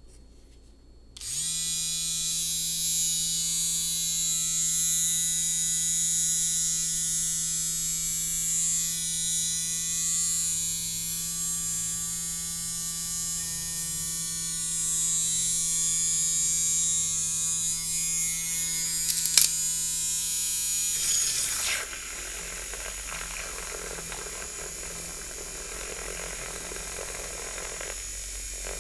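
Electric milk frother's small motor whirring steadily with a frothing hiss, starting about a second in. A sharp tap comes near two-thirds of the way through, and the frother switches off shortly after, leaving a fainter hiss.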